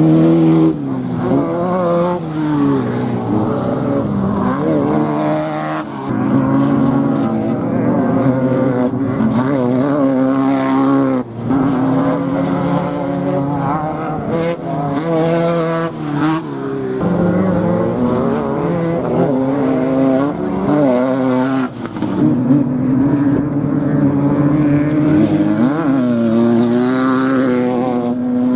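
Off-road race vehicle engine running hard, its pitch climbing and dropping over and over as the throttle opens and closes and the gears change.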